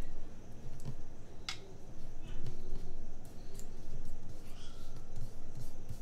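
Hands handling planner pages and stickers: paper rubbing and light taps, with a sharp click about one and a half seconds in.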